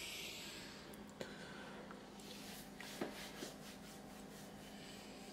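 Faint handling sounds: soft rubbing with a few light clicks and taps, the sharpest about three seconds in, over a low steady hum.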